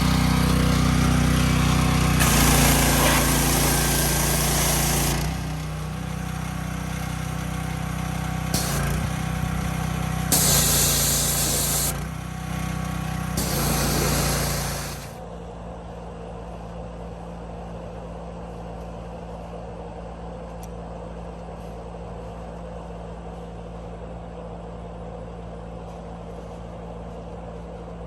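A small engine runs steadily throughout, while a loud hissing blast starts and stops several times, much like a spray or blast tool being triggered on and off while stripping flaking paint from a tractor. About fifteen seconds in, the hissing cuts off suddenly and only the engine keeps running, quieter.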